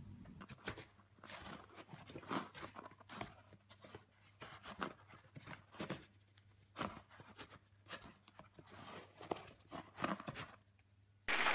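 A cat pawing and patting at a cardboard box: irregular taps, scratches and crinkles of paws and claws on cardboard.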